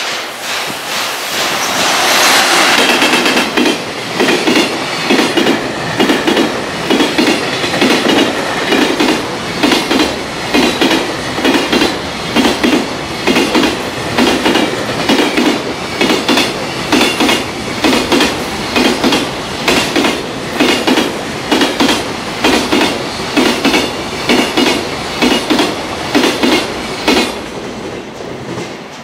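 Freight container train passing close at speed, its wagon wheels pounding over rail joints in a steady clickety-clack of double beats about once a second. There is a loud rush about two seconds in, and the clatter fades away near the end.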